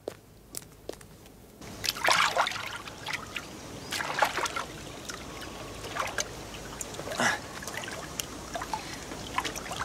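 Oars of a rowboat dipping and pulling through lake water, with four splashy strokes about every one and a half to two seconds and water trickling and lapping between them. The water sound starts about a second and a half in.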